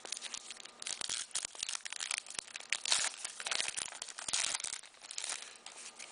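Hockey card pack wrapper being torn open and crinkled by hand, then the cards pulled out: a run of irregular crackles and rustles in several clusters.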